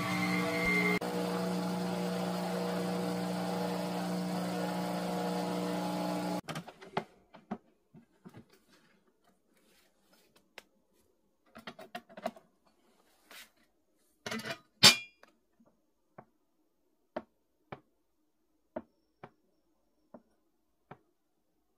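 Philips automatic espresso machine's pump humming steadily while it dispenses coffee, stopping about six seconds in. Then come scattered plastic clicks and knocks as the drip tray is pulled out and handled, with one sharp clack about halfway through.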